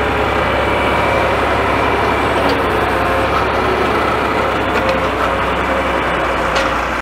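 John Deere farm tractor's engine running steadily close by while its front loader, fitted with a bale spear, lifts a round hay bale onto a flatbed trailer.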